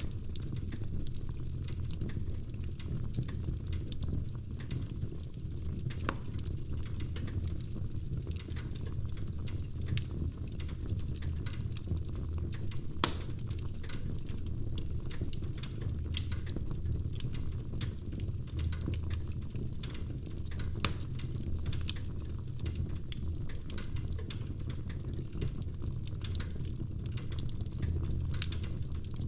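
Wood fire crackling in a fireplace: a steady low rumble of flames with irregular small crackles and snaps, and an occasional louder pop.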